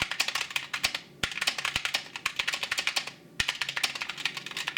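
Fast, hard typing on an SK61 mechanical keyboard with Gateron optical brown switches, keys bottoming out with a loud clack, pausing briefly twice. Its sound is loud.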